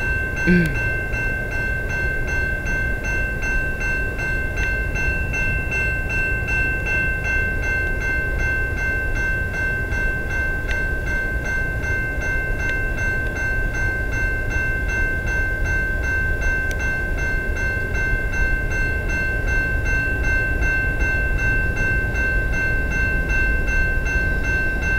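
Railway level-crossing warning bell ringing continuously with a fast, even pulse, as the crossing signals are activated for an approaching train. A low rumble runs underneath.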